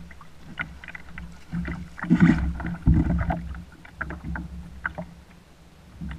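Water sloshing and splashing against a plastic kayak hull as a hooked striped bass is landed by hand alongside, with a louder splash about two seconds in and a dull thump just after.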